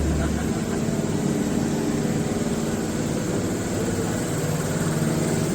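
Steady mechanical hum of an industrial machine running, with a few constant low tones over an even noise.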